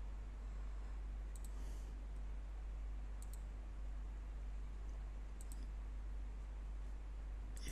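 Computer mouse button clicks: short, sharp ticks, each doubled, about two seconds apart, over a steady low hum.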